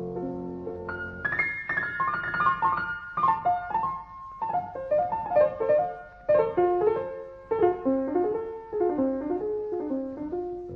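Piano music: low held notes, then from about a second in, quick runs of notes falling in pitch, one after another.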